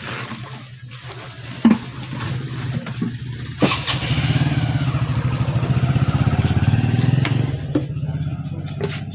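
A small engine running with a fast, even pulse, starting about a third of the way in after a sharp knock and easing off near the end; a few knocks come before it.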